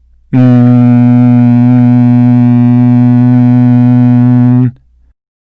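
A voice holding a long, steady, hummed 'nnn', the nasal consonant n voiced through the nose at one unchanging pitch for about four seconds, ending abruptly.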